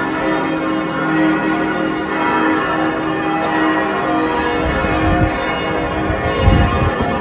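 Church bells of St. Stephen's Cathedral ringing, many bells sounding together with their tones overlapping steadily. A low rumble comes in twice near the end.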